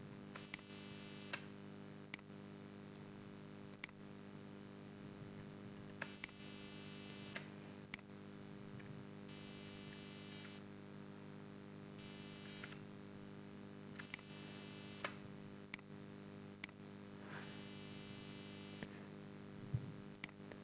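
Computer mouse clicking a handful of times, a second or several apart, over a steady electrical hum. A buzzing interference comes and goes in stretches of about a second.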